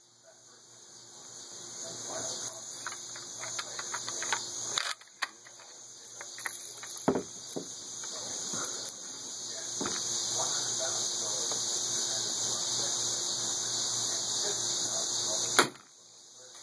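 Cheap BB gun firing a few sharp single shots, the loudest near the end. Between the shots there is a steady high hiss.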